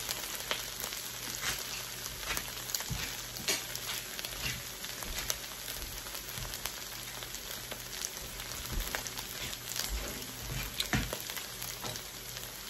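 Sliced beef frying in a hot cast-iron wok: a steady sizzle with scattered small pops of spattering fat.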